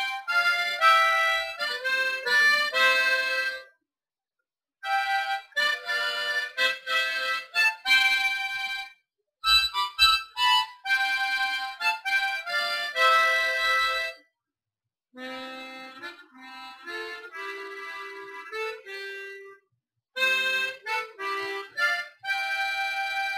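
Background music: a melody played in short phrases with brief silences between them, with a softer passage past the middle.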